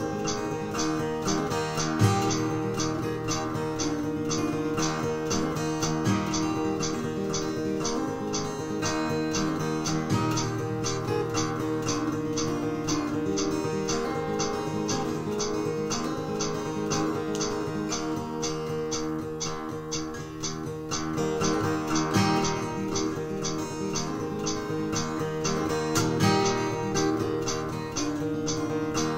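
Solo steel-string acoustic guitar playing a piece: a steady, continuous run of picked notes over ringing bass notes.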